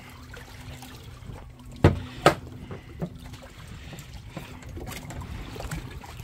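A boat's steady low hum at sea, with two sharp knocks about half a second apart a little under two seconds in and a fainter click a second later.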